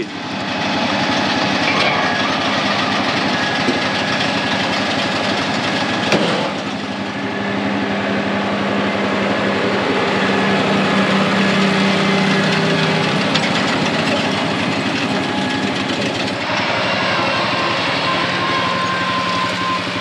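Diesel farm tractor engines running steadily, with the engine note changing abruptly about 6 and 16 seconds in. In the middle part a New Holland tractor pulling a round baler runs close by; near the end a tractor pulls a wheel rake.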